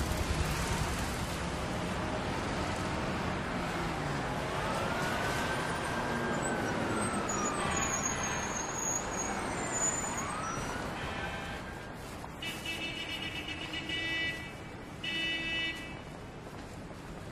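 Steady city street traffic noise, with a siren-like wail that rises and falls in the middle. Near the end come two short, pitched blasts.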